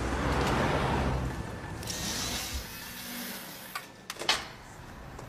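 Low rumble and hiss, then a few sharp metallic clicks near the end as the lock of a shop's glass entrance door is worked and the door is opened.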